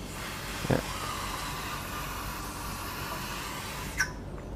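Aerosol can of Motul C1 chain cleaner spraying onto a motorcycle drive chain: a steady hiss for about four seconds that cuts off with a click. There is a soft knock about a second in.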